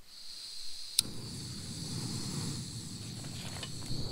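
A single sharp click about a second in, then the steady low rush of a propane camp stove burner catching and running. Throughout, a steady high chorus of crickets.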